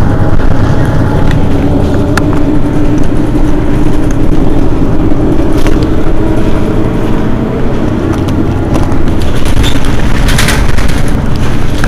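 Mercedes-Benz Citaro city bus's rear-mounted diesel engine idling steadily at a stop, with a few light clicks over the steady hum.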